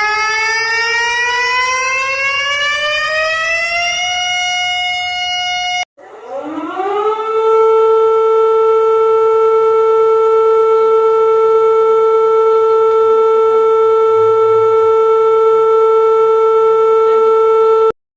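Emergency-alert siren in two parts. The first tone rises slowly in pitch, levels off and cuts off about six seconds in. A second siren then winds up quickly and holds one steady tone until it stops abruptly near the end.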